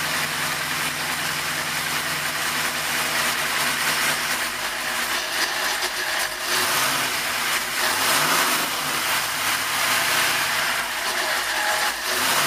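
Big-inch small-block Ford Windsor V8 with Edelbrock SC1 heads, running on an engine dyno at a steady idle. Its revs rise briefly a few times a little past halfway, and once more near the end.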